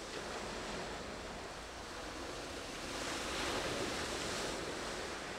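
Small waves washing on the shore, one wave swelling louder about three seconds in.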